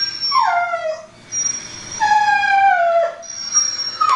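A dog's whining cries, each sliding down in pitch over about a second, three in a row about two seconds apart.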